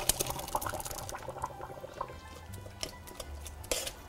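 Hot cooked grapes and juice pouring from a pot into a metal sieve over a bowl, splashing at first and thinning to a trickle after about a second. A few light clinks of metal follow, one louder near the end.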